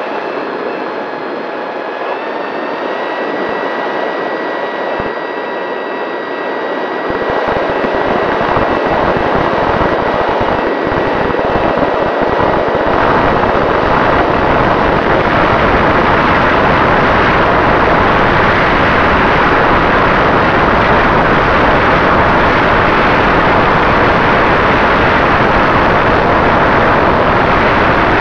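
Electric motor and propeller of an AR900 RC flying wing whining steadily, heard through its onboard camera, stepping up in pitch about two seconds in. From about seven seconds in, wind rush on the camera's microphone builds and then drowns out the motor.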